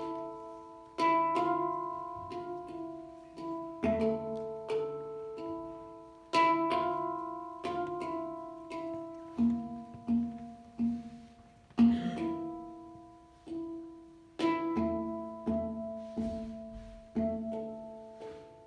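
Hang (steel handpan) played with the hands: single notes and quick pairs struck about every second, each ringing out and slowly fading, in a slow, sparse melody.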